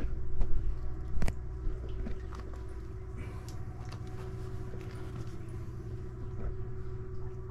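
A steady low hum with a faint steady tone over it, and a few sharp knocks in the first second or so, then scattered light ticks.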